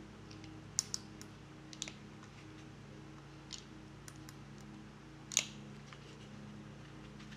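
Scattered sharp plastic clicks as a cable tie is pulled tight with a hand tensioning tool, the tie's teeth ratcheting through its head; the loudest click comes about five and a half seconds in.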